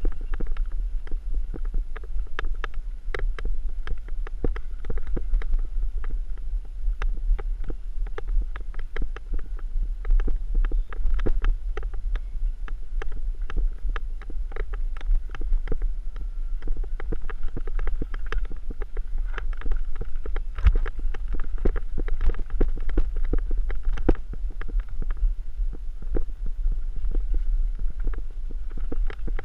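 Mountain unicycle rolling down a rocky dirt singletrack, heard through the camera housing: a constant low rumble with a steady stream of irregular small knocks and rattles as the tyre runs over stones and bumps.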